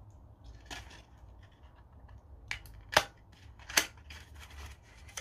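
A few sharp clicks and taps from handling a lipstick and its packaging, the two loudest about three seconds in and just under a second later.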